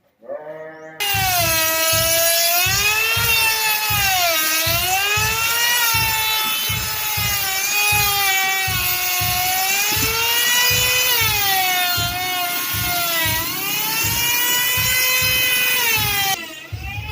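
Electric profiling router running at high speed, its whine dipping in pitch and recovering again and again as the cutter loads up, with a regular low pulsing beneath; it starts about a second in and cuts off shortly before the end.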